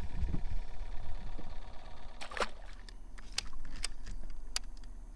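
Water sloshing and low handling bumps as a largemouth bass is let back into the water over the side of a small boat, followed about two seconds in by a brief rushing sound and then a few faint sharp clicks.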